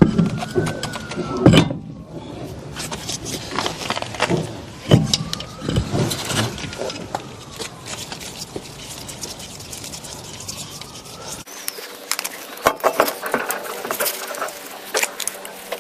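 Irregular knocks, clinks and scrapes of a car wheel being handled and fitted onto the hub, with metal fittings clinking, and a faint tone rising and falling behind them.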